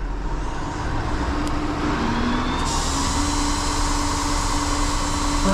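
A motor vehicle running steadily, with a faint steady hum that comes in about a second in and a hiss that grows louder about halfway through.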